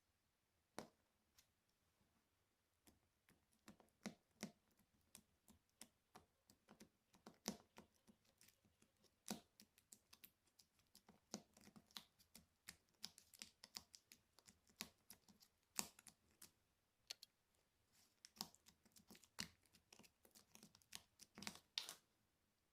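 Slime being pressed and worked by hand, giving irregular sharp sticky clicks and pops, several a second.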